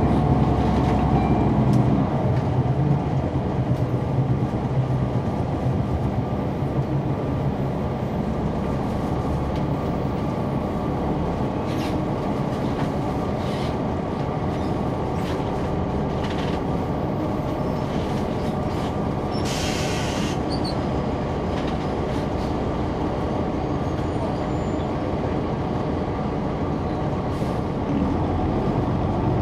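Caterpillar C9 ACERT diesel engine of a 2004 Neoplan AN459 articulated bus, heard from the rear seats with the ride's rumble and rattles. It runs loud for the first couple of seconds, settles to a lower steady level, then builds again near the end, with a short hiss about twenty seconds in.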